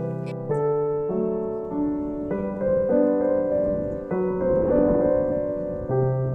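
Background music: a slow, soft piano piece, its notes changing about every half second.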